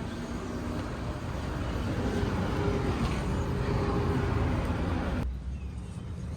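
Motor vehicle running: a steady engine and road rumble that swells in the middle and drops off suddenly about five seconds in.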